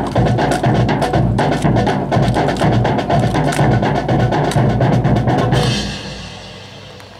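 Drum-heavy music with a steady, even beat, which dies away about six seconds in.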